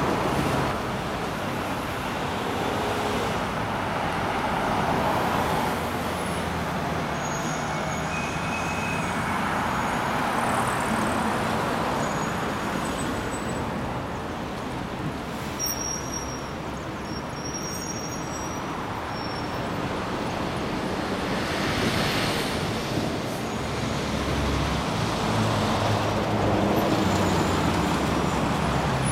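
Road traffic: cars and vans passing on a city street, a steady tyre-and-engine rush that swells and fades as vehicles go by, with a low engine hum rising near the end.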